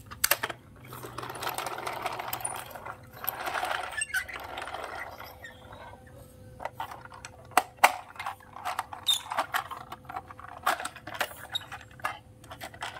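Plastic toy truck and trailer handled on a tile floor: a rattling rush of small plastic wheels rolling over the tiles for the first few seconds, then a run of light plastic clicks and taps as the trailer's parts are moved.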